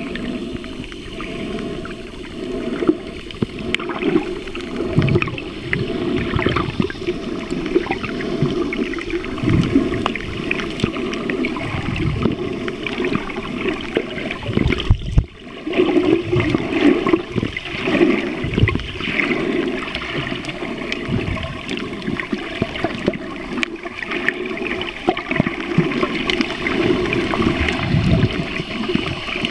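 Muffled underwater noise picked up by a camera held below the surface while snorkeling: water gurgling and sloshing against the camera, with a brief dip about halfway through.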